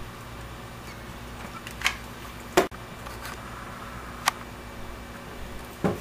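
A few sharp clicks and knocks of tools and wire being handled on an aluminium work plate, the loudest about two and a half seconds in, over a steady low hum.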